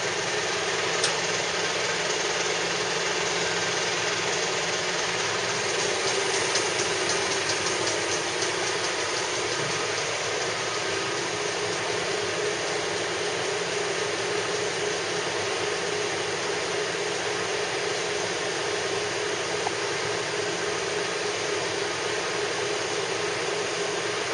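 Machinery running steadily: a constant mechanical drone with a broad hiss that does not change, and a few faint ticks in the first few seconds.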